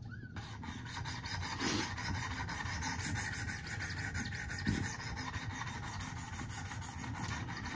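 Sharpening stone on a Wicked Edge guided sharpener's arm scraping along the steel edge of a recurve pocket knife in continuous back-and-forth strokes, grinding out edge damage. The scraping starts a moment in and keeps up steadily.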